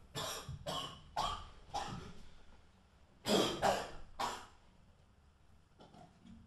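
A man coughing hard: four harsh coughs in quick succession, then after a short pause three more, louder.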